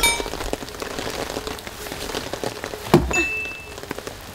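Steady rain falling, with many small drop taps, and a single louder thump about three seconds in.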